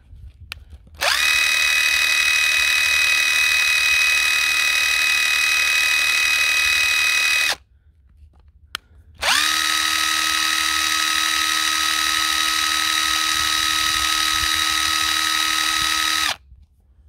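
Panasonic EY75A2 18V brushless impact wrench running free with no load, in two trigger pulls of about six and seven seconds. Each pull gives a steady motor whine that spins up quickly and cuts off sharply. It holds a constant speed throughout, running at full power after its motor, switch and electronics were cleaned with contact cleaner, which the owner calls pretty much perfect.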